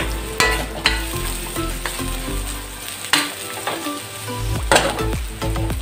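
Garlic and ginger sizzling in hot oil in a wok, with a few short scraping knocks as the wok is tossed and stirred.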